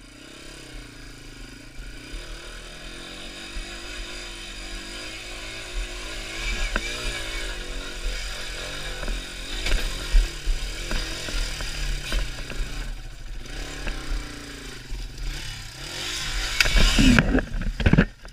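Yamaha TW200's single-cylinder four-stroke engine working under load as the bike climbs steep slickrock, its pitch wavering with the throttle. It grows steadily louder, revs hardest a couple of seconds before the end, then drops away suddenly.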